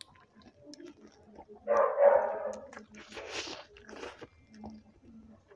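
Close-miked chewing and mouth noises of a man eating rice and meat by hand. About two seconds in there is one loud short sound, and a noisier burst follows about three seconds in.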